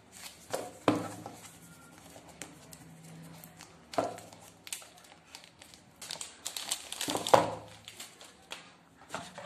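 Thin plastic wrapping crinkling and rustling as a new smartphone is handled and slid out of its plastic sleeve, with a few sharp clicks of the phone and cardboard box; the loudest click comes about seven seconds in.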